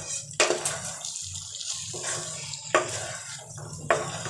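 A spatula stirring and scraping thick, wet chicken masala around a non-stick pan, with three sharp clatters against the pan.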